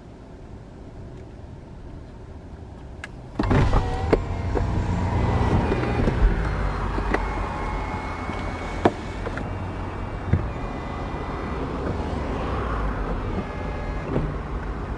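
2023 Porsche 911 Turbo S Convertible's power soft top operating. About three and a half seconds in, a clunk comes and the motor whine starts. Several clicks and knocks follow as the mechanism moves.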